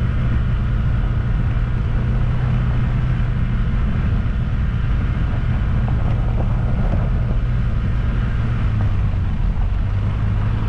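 A vehicle engine running steadily on the move, a low hum over road noise. Its pitch drops slightly about nine seconds in.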